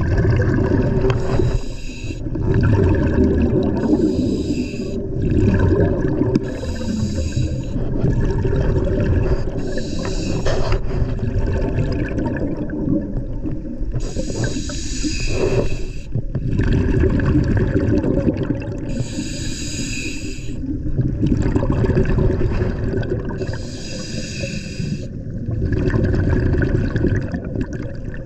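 Scuba diver breathing through a regulator underwater: a hissing inhale every few seconds, about seven in all, each followed by the bubbling rumble of the exhale.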